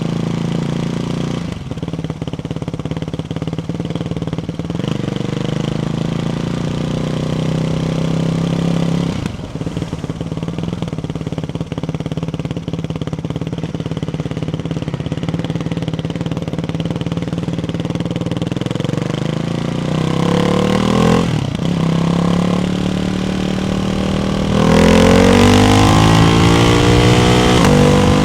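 Ducati Hypermotard 698 Mono's single-cylinder engine through a Termignoni exhaust with baffles fitted, running at changing revs. Its pitch climbs, drops briefly several times, and climbs again. It is at its loudest and highest under throttle near the end.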